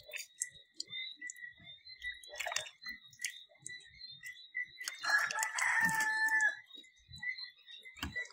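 A rooster crows once, a single long call about five seconds in. Before it come a few light water splashes from hands rinsing a face.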